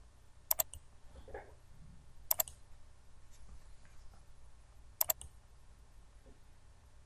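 Computer mouse button clicks: three sharp clicks a couple of seconds apart, each a quick double, over a low room hum.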